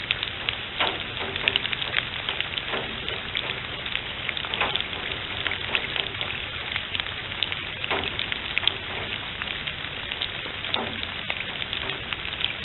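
Steady rain falling, with frequent sharp raindrop ticks close by.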